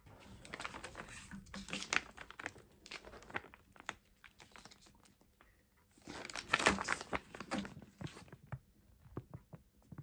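Clear plastic film bags crinkling and rustling as they are picked up and handled, in irregular bursts, busiest in the first few seconds and again around six to seven seconds in.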